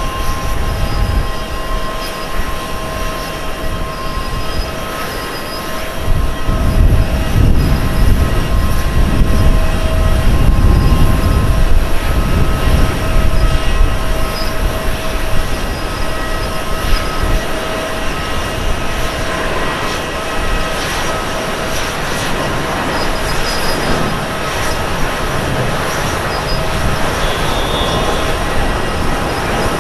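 Airbus A350-900's Rolls-Royce Trent XWB turbofans at takeoff thrust during the takeoff roll: a steady whine of several fan tones over a deep roar, which swells loudest from about six to thirteen seconds in as the jet passes, then eases to a steadier level.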